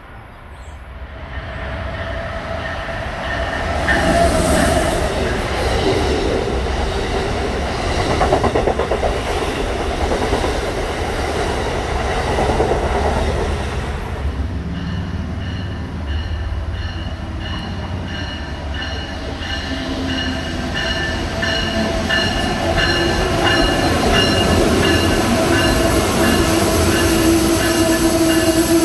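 A commuter train rumbling in on the far tracks, then an Amtrak train of Amfleet coaches pulling in alongside on the near track. As it slows, its wheels and brakes give out a set of steady squealing tones that get louder near the end.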